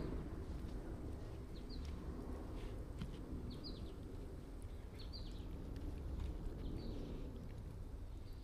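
Faint outdoor ambience: a bird gives short, high, downward chirps about once a second over a low steady rumble, with soft wet squishing and small clicks from hands massaging an oil and herb marinade into raw chicken leg quarters.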